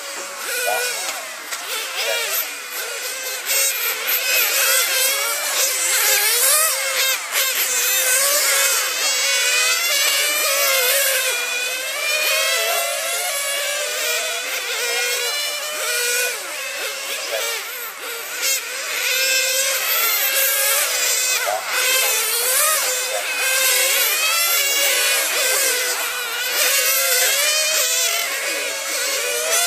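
Several radio-controlled racing cars lapping at once, their high-pitched motors revving up and down in overlapping whines as they accelerate and brake.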